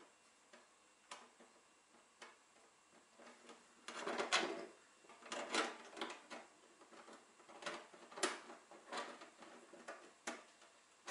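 Scattered light knocks and clicks of tools and plumbing fittings being handled, sparse at first, with a busier, louder run of clatter about four to six seconds in, then single knocks every second or so.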